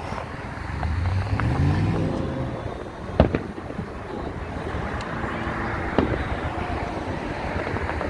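Fireworks going off in sharp bangs: two close together about three seconds in, the loudest, then single bangs about five and six seconds in. Under them runs a steady outdoor rumble, with a car engine rising in pitch about a second in.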